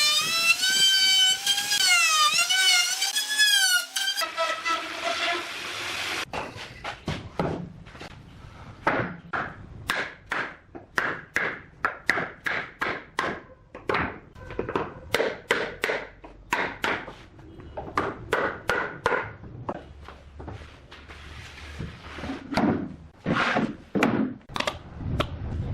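A power tool whining, its pitch wavering as it works, cuts off a few seconds in. It is followed by a long run of irregular knocks and strokes on wood, about two a second.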